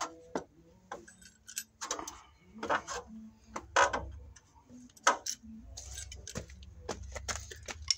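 Irregular clicks, knocks and light metallic clatter of tools being handled. A low steady rumble runs under the second half.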